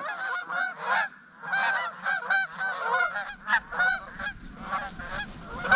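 A flock of Canada geese honking in flight, many overlapping honks coming in quick, irregular succession, with a short lull about a second in.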